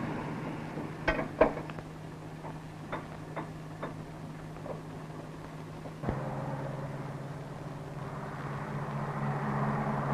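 A handful of sharp metallic clanks from a crew handling a towed field gun, over a steady low hum; near the end a vehicle's running noise swells up.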